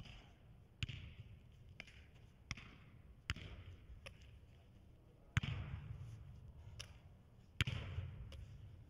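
Football struck again and again as two players pass and control it in the air: sharp thuds about once a second, each ringing briefly in the echoing indoor hall. The two loudest strikes come about halfway through and near the end.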